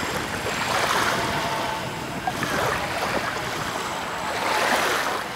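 Wind and small waves lapping, in a noisy wash that swells every second or two. Under it runs a faint steady whine from the twin electric motors of a Dynam PBY Catalina model seaplane in flight.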